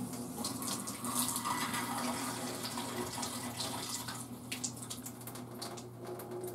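Thin stream of water from a reverse osmosis drinking-water faucet splashing into a stainless steel sink. The stream slowly dies away as the filter system's pressure drains off after its supply valves have been shut.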